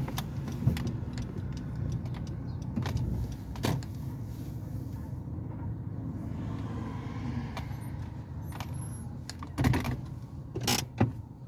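Car running on the road, a steady low rumble of engine and tyres, with scattered light clicks and rattles and a few louder knocks near the end.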